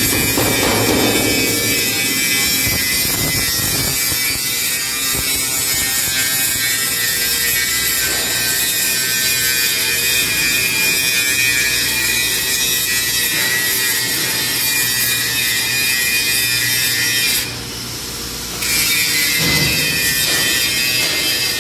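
Angle grinder running steadily against steel, grinding with a continuous whine and grinding noise that eases briefly about three quarters of the way through.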